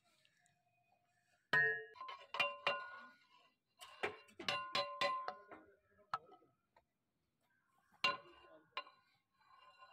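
Metal ladle clanking against a large aluminium cooking pot while rice is dished out, irregular knocks that each leave a metallic ring, coming in several clusters.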